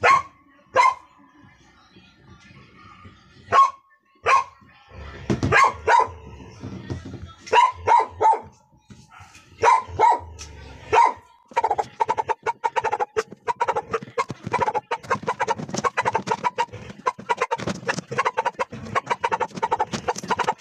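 Dog barking over and over, in short sharp barks that come spaced apart at first and then in a rapid, almost continuous run from about halfway through.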